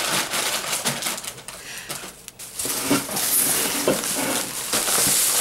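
Thin plastic shopping bag rustling and crinkling as hands rummage through it, loudest in the second half.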